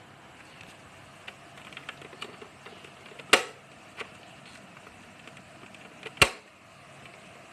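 Handling sounds: scattered light clicks, then two sharp knocks about three seconds apart, the second the loudest.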